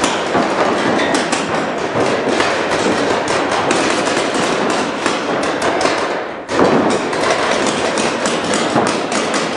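Rapid, continuous firing of reball markers, with many sharp pops and the thuds of balls striking bunkers packed close together; the din dips briefly about six seconds in and then resumes.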